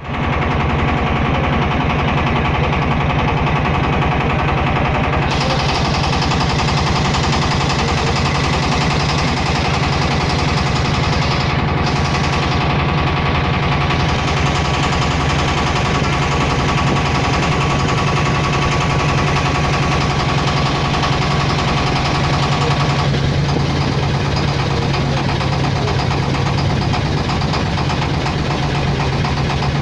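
An engine running steadily with a fast, even throb, a constant loud drone whose tone shifts slightly about three-quarters of the way through.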